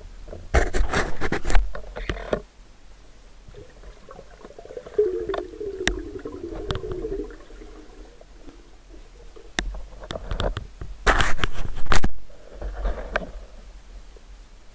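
Underwater noise recorded by a diver's camera: a few loud bursts of bubbling, rushing water, with a wavering low hum in the middle.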